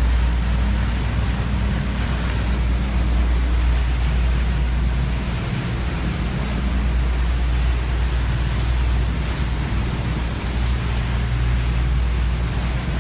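Twin inboard engines of a motor cruiser running steadily at about 2,000 rpm, a constant low drone, under a steady rush of wind and water against the hull.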